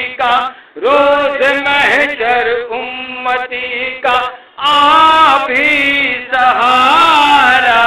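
A male voice singing an Urdu devotional salam in a chanting style, with long, ornamented phrases and short breaks between them.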